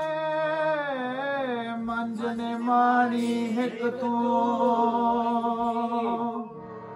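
Sikh kirtan: a male voice sings a long, melismatic held phrase of the shabad, its pitch bending and gliding, over a steady harmonium drone. The music drops slightly in level near the end.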